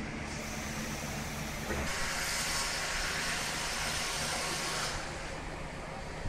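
An engine running low and steady. A loud rushing hiss comes in abruptly about two seconds in and lasts about three seconds.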